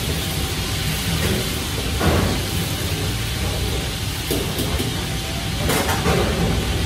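Steady roar of commercial wok burners and the overhead kitchen extraction hood, with a few metal clanks of woks and utensils about two seconds in and again around six seconds in.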